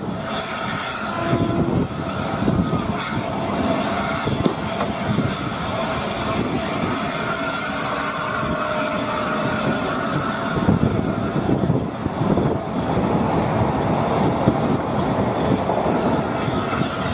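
Peppercorn A1 Pacific steam locomotive 60163 'Tornado' running along a platform, heard from its footplate: the steady rumble and clatter of wheels on rail, with faint wheel squeal at times.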